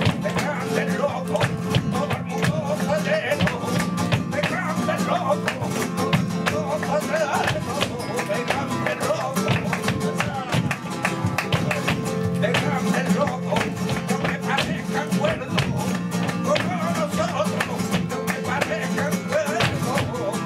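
Live flamenco sevillanas: a male cante singer over flamenco guitar, with frequent sharp percussive clicks of the kind that palmas or dancers' footwork make.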